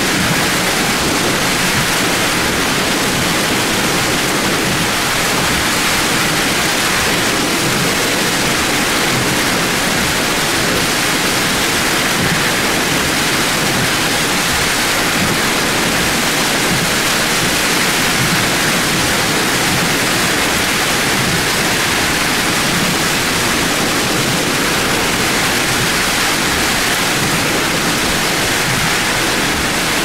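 Torrential rain and severe thunderstorm wind, heard from inside a vehicle as a loud, steady rush of noise that hardly changes.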